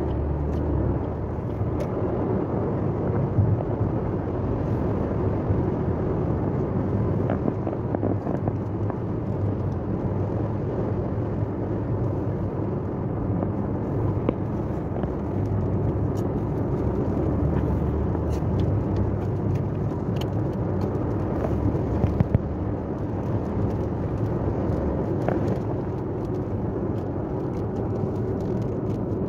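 Steady road noise of a car driving at highway speed, engine and tyres heard from inside the cabin.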